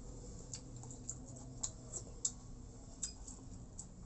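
Eating close to the microphone: small sharp mouth clicks and smacks of chewing, irregular, one or two a second.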